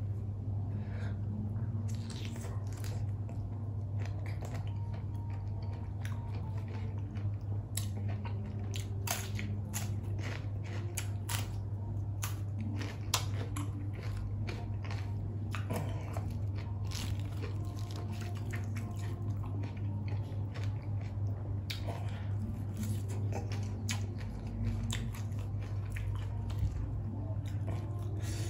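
A person chewing and biting raw shrimp dipped in seafood sauce, with fresh herb leaves, close to the microphone: wet crunches and sharp mouth clicks come in quick, irregular runs over a steady low hum.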